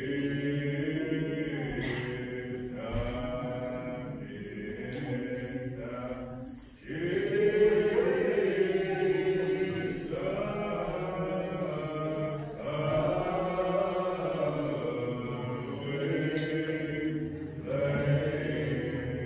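A slow hymn sung in long held notes, phrase after phrase, with a short break about seven seconds in.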